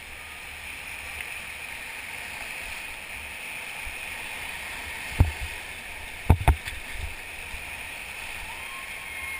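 Steady rush of river water around a whitewater raft. Three sharp knocks about five and six and a half seconds in.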